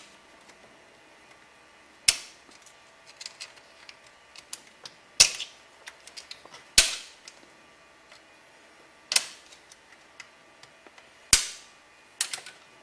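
Sharp metal clicks and knocks from a tool working a retaining clip out of an automatic transmission's clutch assembly: five loud strikes a couple of seconds apart, each with a brief ring, and lighter ticks between them.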